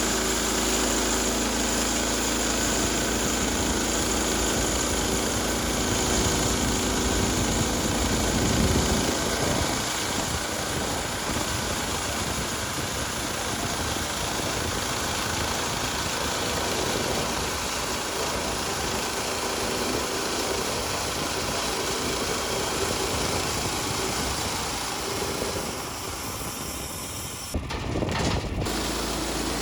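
Portable bandsaw sawmill's small gasoline engine running steadily, its blade sawing through a red oak log. The engine's hum turns rougher about nine seconds in, and the sound breaks off briefly near the end.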